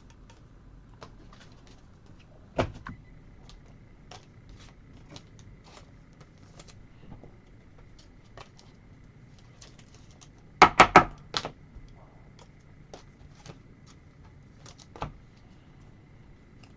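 Trading cards being handled and set down on a table: scattered light clicks and taps, with one louder knock a few seconds in and a quick cluster of three or four sharp knocks about eleven seconds in.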